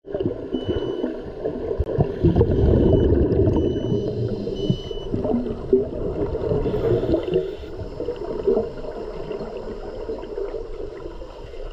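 Scuba diver's exhaled bubbles gurgling and rumbling past an underwater microphone, loudest in the first half and easing off after. A few short high beeps sound during the first five seconds.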